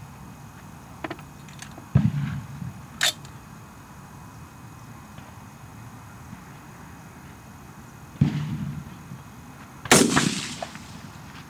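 Three rifle shots from a DPMS AR-15 in .223: one about two seconds in, then two more close together near the end, each trailing off in a rolling echo. A short sharp crack follows about a second after the first shot.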